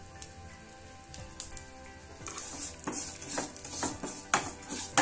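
Sesame seeds roasting in a non-stick kadai, sizzling and starting to pop, while a wooden spatula stirs them. Sharp crackles come more often in the second half.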